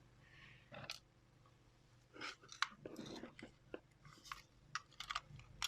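Irregular sharp plastic clicks and crackles of a small computer mouse being handled and clicked, a few single clicks among quick little clusters.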